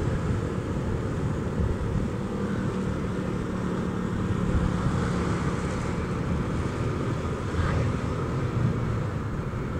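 Honda Vario 125 scooter's single-cylinder engine running steadily on the move, under a steady rumble of wind and road noise.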